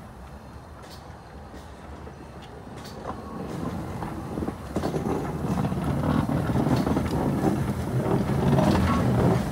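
Narrow-gauge Bagnall 0-4-2T steam locomotive Gelert running past on the rails. It grows steadily louder from about three seconds in and is loudest near the end as it draws alongside.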